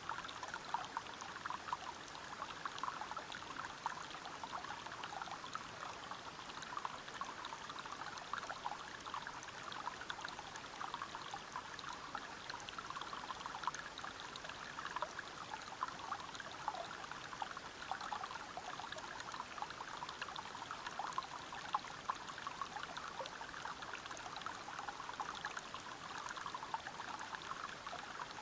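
River water spilling over rocks at a small waterfall: a steady, dense splashing and gurgling that is even throughout.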